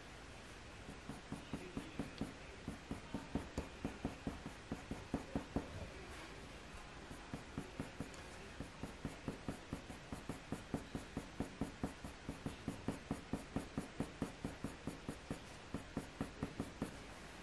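Faber-Castell Polychromos coloured pencil scratching quick, short strokes on hot-press watercolour paper, about four a second, laying down fine fur hairs. The strokes pause for a couple of seconds midway, then carry on.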